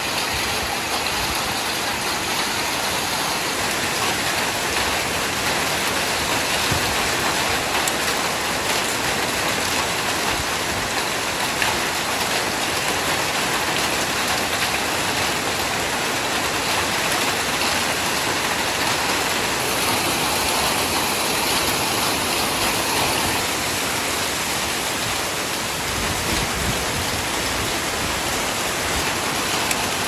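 Hail and heavy rain falling on corrugated metal roof sheets: a steady, dense downpour noise with scattered sharper ticks.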